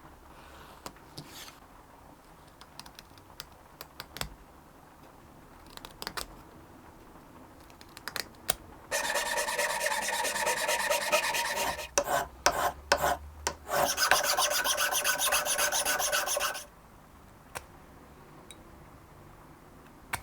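Scattered light taps and clicks of hand tools on wood, then wood being filed or abraded in two long steady spells of about three seconds each, with a few short strokes between them.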